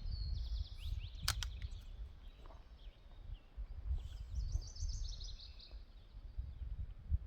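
A songbird singing two quick runs of high, rapid chirping notes, one at the start and one about four seconds in, over a steady low rumble of wind on the microphone. A single sharp click comes a little over a second in.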